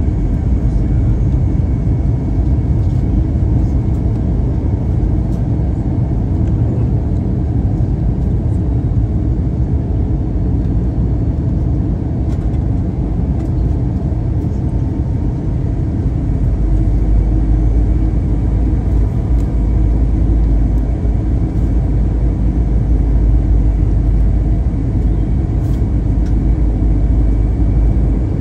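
Steady in-flight cabin noise of an Airbus A321 airliner: a low rumble of engines and airflow with a hiss above it. The deepest part of the rumble grows a little stronger about halfway through.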